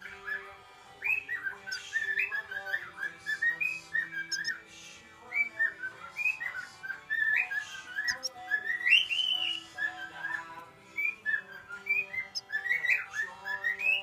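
Domestic canary singing: a long, continuous warbling song of quick trills and rising and falling whistles, with soft steady background tones underneath.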